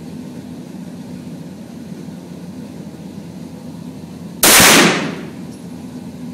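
A single 9mm shot from a Beretta CX4 Storm carbine about four seconds in, with a short echo off the indoor range's walls. A steady low hum runs underneath.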